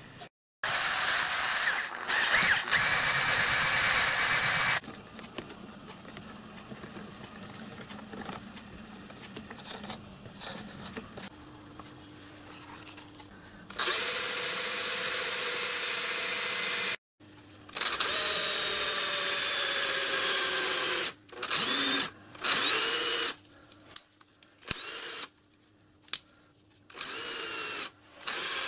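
Cordless drill motor running in repeated bursts while it drives the spindle of a small watchmaker's lathe, with a steady high whine. Toward the end come several short runs, some spinning up with a rising whine.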